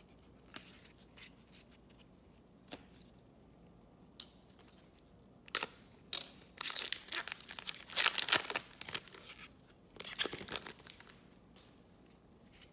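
Trading card pack wrapper being torn open and crinkled: a few light clicks of handled cards first, then a run of tearing and rustling from about halfway in, with a last burst a couple of seconds before the end.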